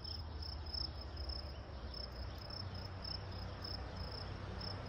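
A cricket chirping steadily: short, high chirps at one pitch, about three a second, over a low steady rumble.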